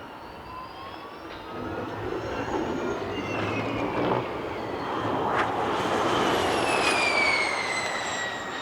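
Formula E electric race car's drivetrain whine with tyre and air noise: a high whine that rises in pitch early on, then grows louder and falls in pitch over the last few seconds.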